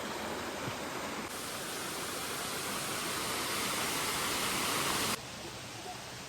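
Steady rushing of flowing water, a stream or small waterfall, growing louder and brighter from about a second in and then dropping back suddenly about five seconds in.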